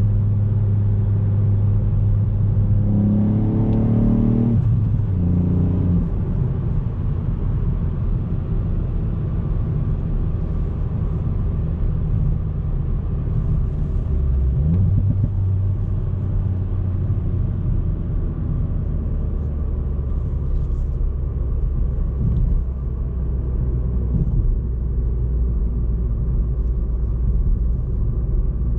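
Ford Fiesta ST Mk8's 1.5-litre turbocharged three-cylinder engine and road noise while driving. The engine revs up briefly about three to four seconds in, then drops to a lower note, and the pitch shifts again around fifteen seconds in.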